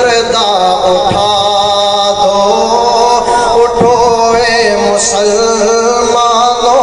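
A man singing an Urdu religious kalam, drawing out long held notes that waver in pitch.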